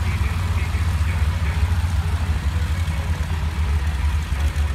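Ford Tri-Motor's three radial engines running at low power as the plane taxis, a deep, steady rumble with a fast uneven beat.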